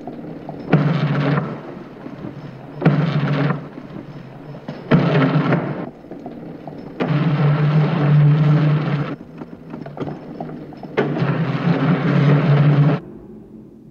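Deep rumbling booms that come five times, each starting suddenly and fading over one to two seconds, the last two longer, with a low rumble in between.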